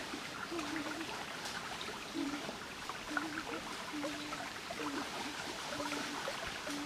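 A shallow jungle stream trickling over rocks, with faint splashes from wading feet. A short, low, steady call repeats roughly once a second throughout.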